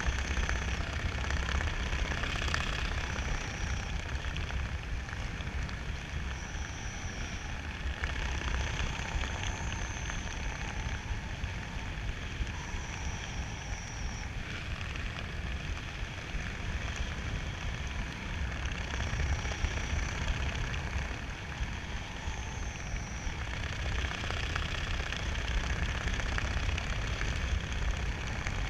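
Steady wind rushing over the camera's microphone in flight, with a low rumble and faint high whistles that come and go.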